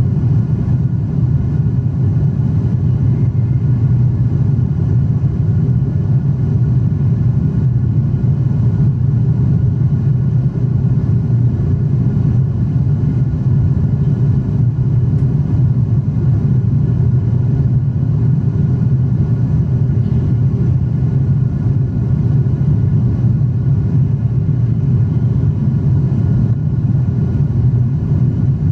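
Cabin noise of a Boeing 777-300 in flight: its twin jet engines and the airflow make a steady deep rumble, with a few faint steady tones higher up.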